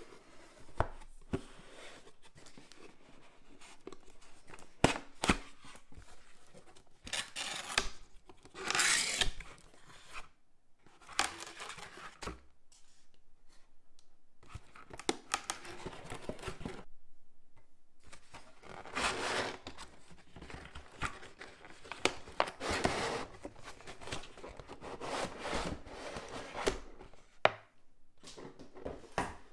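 Cardboard box packaging being handled and opened by hand: irregular scraping, rustling and tearing as flaps and sleeves are pulled apart, with sharp taps and knocks of cardboard in between.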